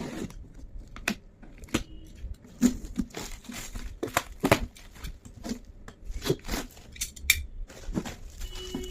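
A parcel being unpacked by hand: irregular tearing and crinkling of packaging, with sharp snaps and knocks.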